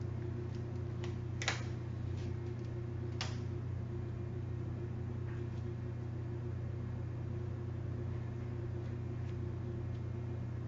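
Steady low background hum, with two sharp clicks about a second and a half and three seconds in and a few fainter ticks from handling the pad and tape materials.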